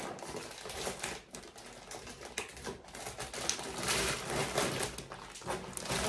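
Packing noises: plastic bags and fabric rustling, with irregular clicks and knocks as items are pushed into a backpack, getting busier and louder about four seconds in.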